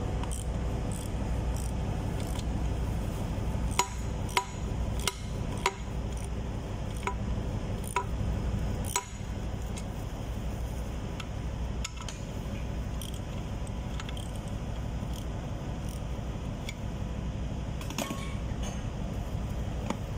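Sharp metal clinks and taps as the parts and clamp of an air-operated diaphragm pump are handled, several close together in the first half and a few more near the end, over a steady low machinery drone.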